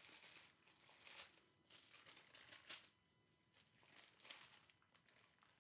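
Faint crinkling and rustling of a fast-food burger's paper wrapper being unwrapped by hand, in short irregular bursts.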